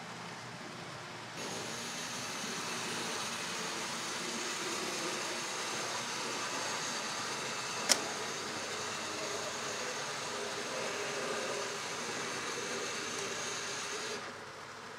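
N gauge model train running along the track: a steady whirr of motor and wheels on rails that starts abruptly about a second and a half in and stops abruptly near the end, with one sharp click about eight seconds in.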